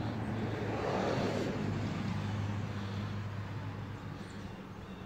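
A car passing by, swelling about a second in and then slowly fading, over a steady low hum.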